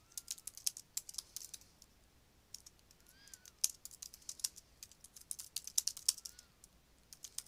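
Typing on a computer keyboard: runs of quick, irregular keystrokes with a short pause about two seconds in.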